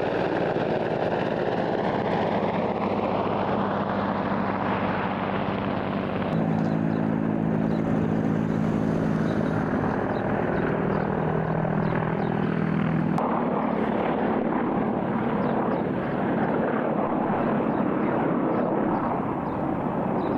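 Russian military attack helicopters (Mi-24, Ka-52, Mi-28N) flying past, giving a loud, steady rotor and turbine noise with a held low drone. The sound changes abruptly about six and thirteen seconds in.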